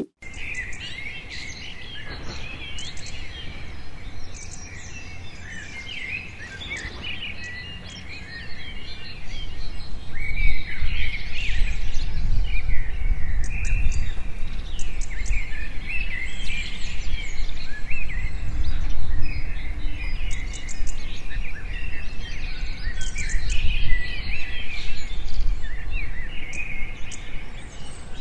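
Many wild birds chirping and calling, overlapping, with a low rumble underneath that grows louder about a third of the way in.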